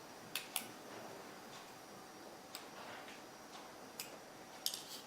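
Scattered sharp little clicks and ticks from a small Phillips screwdriver working tiny screws out of an iPhone 3G's metal frame. There is a pair near the start, single clicks in the middle and a quick cluster near the end.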